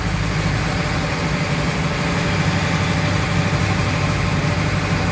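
Volkswagen Kombi van's engine running steadily at low speed, heard from inside the cab, with the even noise of the tyres on a dirt road.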